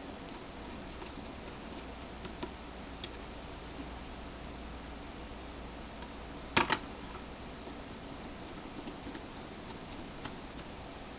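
Small metal screws being driven with a small Phillips screwdriver into a laptop hard drive's metal case: faint scattered ticks, with a sharp double click a little over halfway through, over a steady low hum.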